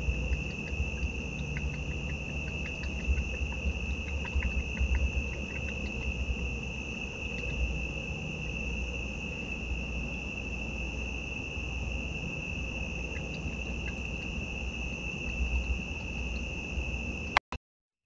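Crickets trilling steadily in one unbroken high note, over a low rumble, with scattered faint ticks in the first few seconds. A sharp click and a brief dropout come near the end.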